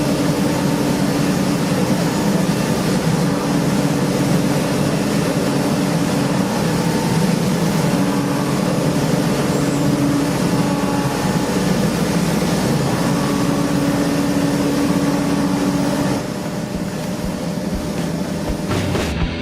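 CNC machining centre running: a steady, dense mechanical noise with a held hum. It eases slightly about sixteen seconds in.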